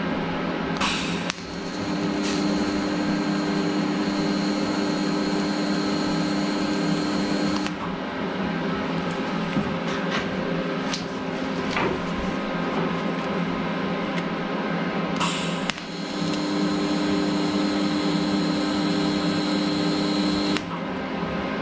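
TIG welding arc buzzing steadily during two tack welds, from about a second in to eight seconds and again from about sixteen to twenty-one seconds; each weld opens with a short crackle as the arc strikes. A steady whir carries on between the welds.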